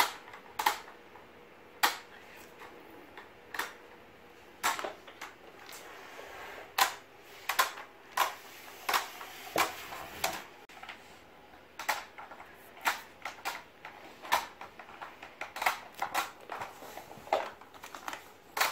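Hard plastic parts of a Ben 10 Rust Bucket toy playset truck clicking and knocking as it is handled and opened: irregular sharp clicks, sometimes several in quick succession.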